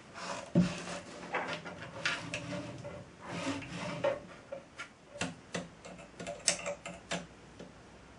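Irregular clicks, knocks and short scraping rubs of hard objects being handled, with no steady running sound; it fades out near the end.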